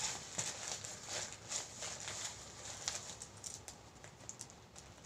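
Rustling with light taps and clicks as items are handled and packed into a fabric bag, thinning out near the end.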